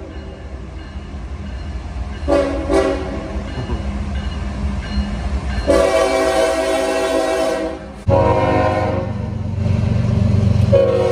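CSX freight diesel locomotive's air horn: two short blasts, then one long blast, over the low rumble of the approaching train. After a cut about eight seconds in, a louder, deeper locomotive rumble comes in, with the horn sounding again twice.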